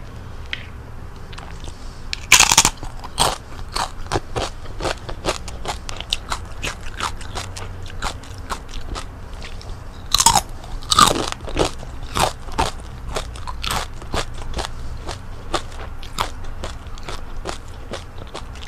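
Biting into and chewing crispy deep-fried chicken-skin chicharon. Loud crunches come about two seconds in and again about ten seconds in, with a quick run of smaller crackling crunches as it is chewed.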